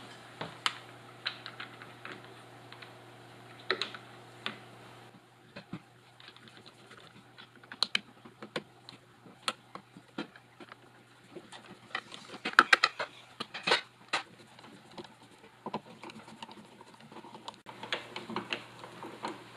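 Screwdriver driving the screws that fasten a plastic blank cover plate onto a plastic electrical box: an irregular run of small clicks and scrapes, busiest and loudest about two-thirds of the way through.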